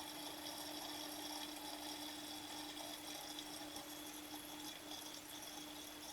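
Water running into a washing machine through its inlet valve: a faint, steady hiss with a steady low hum underneath.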